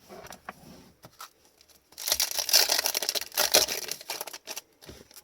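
A foil trading-card pack wrapper being torn open and crinkled, loudest for a couple of seconds from about two seconds in, with softer card handling before it and a sharp click near the end.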